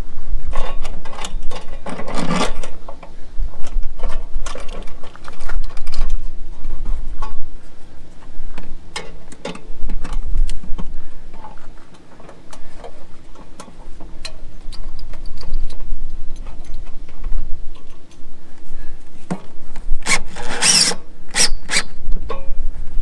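Hand work driving the last screw that fastens a Suburban RV water heater to its trim ring: irregular clicks, knocks and scraping of the tool and metal, with louder scrapes about two seconds in and near the end, over a steady low rumble.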